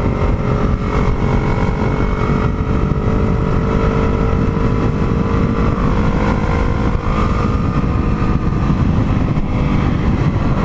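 Yamaha MT-03's parallel-twin engine running at a steady highway cruise, with road and wind noise rushing over the camera microphone.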